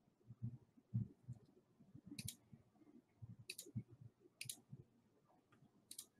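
Faint clicking at a computer: soft taps on the desk and keys, with four sharper double clicks spread through the few seconds.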